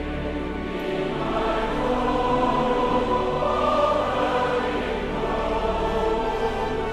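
Orchestral music with a choir singing long held chords, swelling slightly about a second in.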